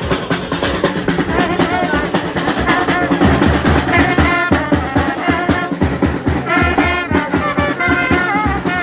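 Brass band playing live: trumpets over a steady drum beat, the trumpet lines growing stronger about four seconds in.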